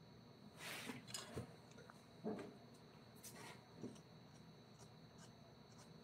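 Five or so brief, faint scraping or rubbing strokes in the first four seconds, the loudest just after two seconds, over a faint steady high whine.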